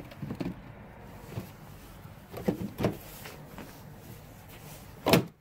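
Light plastic knocks and clicks from a Jeep Compass taillight assembly being handled and pressed into place on the body, with one sharp, loud click near the end.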